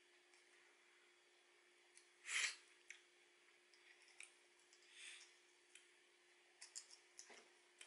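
Faint wet eating sounds of soy-sauce-marinated crab being sucked and squished: two short soft slurps about two and a half and five seconds in, with a few small clicks of chopsticks and shell, over a steady faint hum.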